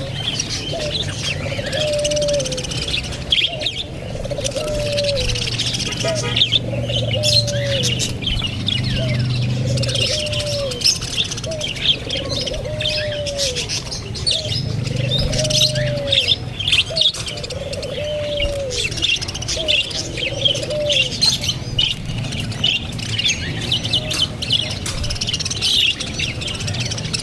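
A flock of parrots chirping and twittering continuously. A lower call, rising and then falling, repeats about every second and a half and stops about three-quarters of the way through.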